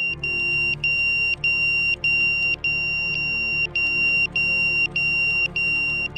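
Crashed FPV quadcopter's lost-model beeper sounding continuously: a high-pitched tone broken into a steady run of half-second beeps with short gaps. It is the alarm that marks a downed quad so it can be found in the snow.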